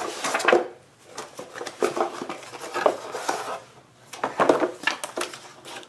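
Cardboard packaging and paper inserts being handled: an irregular run of rustles, scrapes and light knocks as the box flaps are opened and a card is pulled out.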